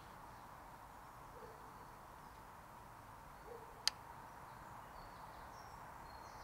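Quiet woodland ambience with a few faint bird calls, broken by a single sharp click about four seconds in.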